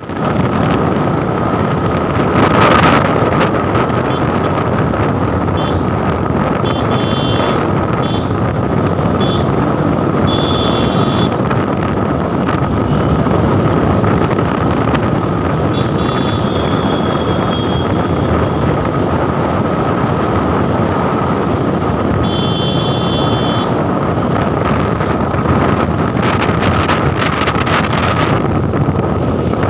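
Motorcycle riding at speed, around 70 to 85 on the speedometer: wind rushing hard over the microphone over steady engine and road noise, with gusts about 3 s in and again near the end. A few short high beeps come through twice, around a quarter of the way in and again in the last third.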